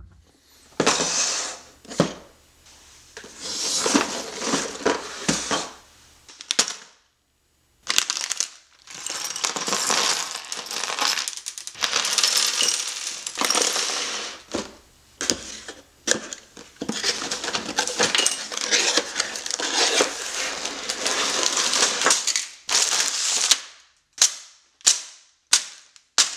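A LEGO set being unboxed: long stretches of cardboard and plastic-bag rustling with bricks rattling inside the bags, then a run of separate sharp plastic clacks near the end.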